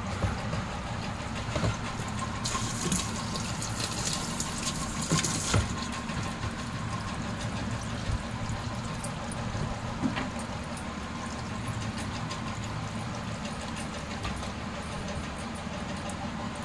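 Twin-tub washing machine with water in the wash tub: a steady low hum under water noise, with louder splashing hiss from about three to five and a half seconds in, and a few small clicks.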